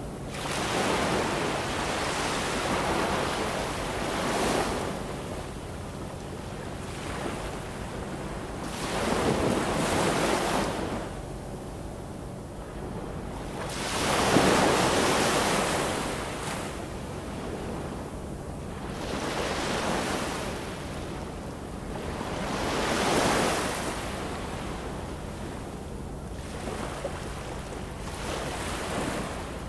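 Waves breaking and washing in: a hiss of surf that swells and falls back every four to five seconds, the strongest surge about halfway through.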